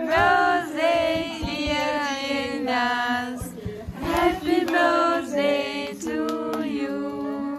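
Young female voices singing a melody together in long held notes.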